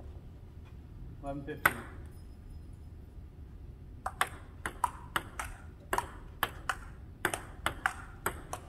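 Table tennis ball being played in a rally: sharp plastic clicks alternating between paddle hits and bounces on the table, two or three a second, starting about four seconds in. One louder single click comes a little under two seconds in.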